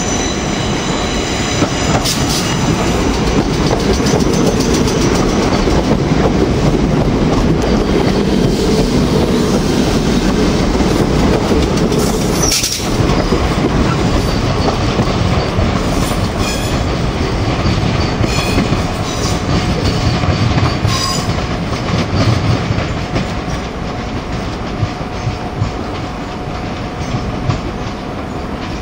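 Electric multiple-unit passenger train running close past on the platform line and drawing away, with a steady loud rumble and wheels clattering over rail joints and pointwork. A high wheel squeal sounds in the first couple of seconds, and the noise fades over the last several seconds as the train recedes.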